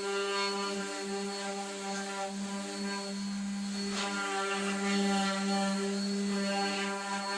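Electric sander running steadily as it sands maple parts, a constant motor hum with a brief change in its sound a little after three seconds and a sharp tick about four seconds in.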